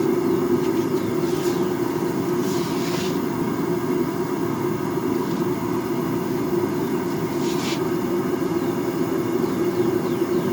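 Forge running with a steady rushing hum, with a couple of brief hisses about two and a half and seven and a half seconds in.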